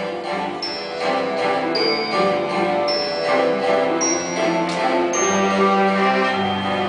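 Recorded music with held instrumental notes and a short high ping about once a second, the pings mostly stepping up in pitch.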